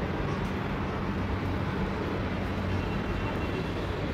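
Steady background rush with a low hum underneath, no distinct events.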